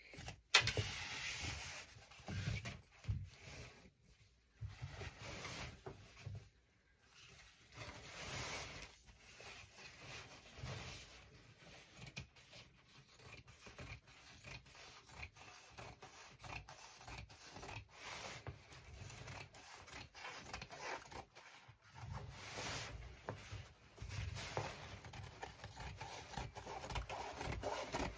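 Ankara print fabric rustling and rubbing as it is handled and cut with fabric scissors, an irregular run of scraping and short snips.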